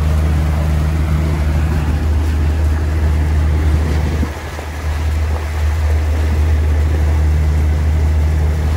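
Yamaha 300-horsepower outboard motor driving a 27-foot boat under way: a steady low drone with a rushing noise of wind and water over it, dipping briefly about four seconds in.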